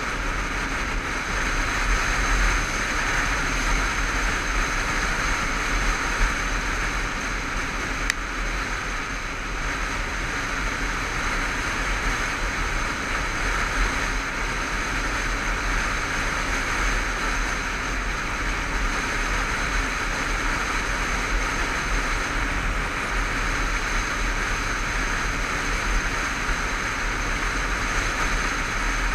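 Steady wind rush and road noise from a Honda CBF500 motorcycle cruising at a constant speed, heard through a helmet-mounted camera's microphone, with the engine running underneath.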